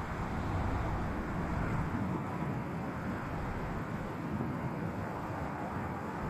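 Strong wind buffeting the microphone: a steady low rumbling noise without distinct events.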